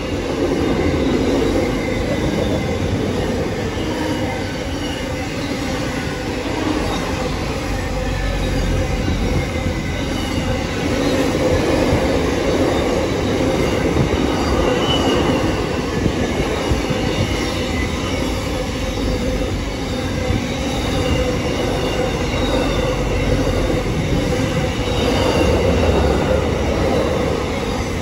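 Container freight train's wagons rolling past close by: steady running noise of steel wheels on the rails, with faint high-pitched wheel squeal.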